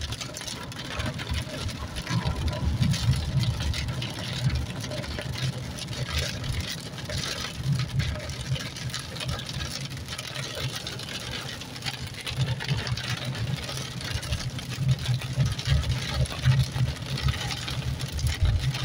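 Inside a car driving through heavy rain: the low, uneven rumble of the car and its tyres on the waterlogged road, with rain hitting the windshield and roof.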